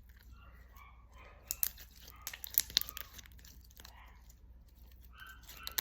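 Handling noise from a plastic slime container and thick, glossy slime: scattered crackles and small sharp clicks, thickest a second or two in, with a tearing, crinkling quality.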